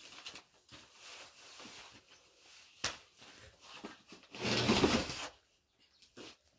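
Cloth being handled and spread on the ground, rustling softly, with a sharp click about three seconds in and a louder rustling rush about four and a half seconds in that lasts under a second.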